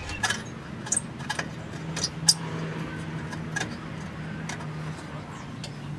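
Scattered light metallic clicks and clinks as the bolts on a car's exhaust pipe joint are tightened by hand, over a steady low hum.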